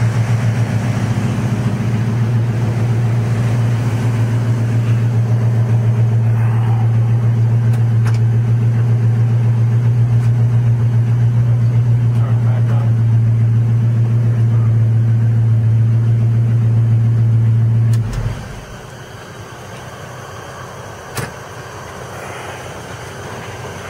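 Chevrolet small-block V8 idling steadily, then shut off about 18 seconds in, leaving only low background noise and a single short knock a few seconds later.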